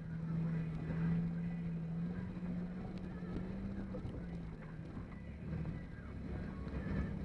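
Engine of an off-road vehicle heard from inside the cab while driving over rough ground: a steady drone that climbs in pitch a couple of seconds in, drops back about halfway through, and climbs again near the end as the throttle changes. Small rattles and knocks from the bouncing cab sound throughout.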